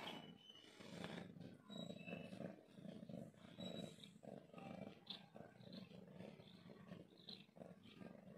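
Faint domestic cat purring, a low rumble that pulses over and over.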